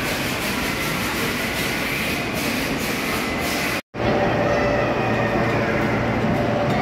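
Steady, loud background din of a busy indoor amusement hall, a reverberant mix of crowd and machine noise with no clear voice standing out. It breaks off for an instant about four seconds in.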